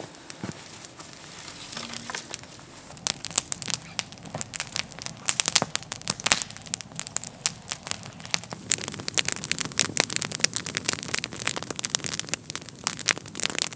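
Wood campfire of sticks and branches crackling and popping. The pops are sparse at first and come thick and loud from about three seconds in.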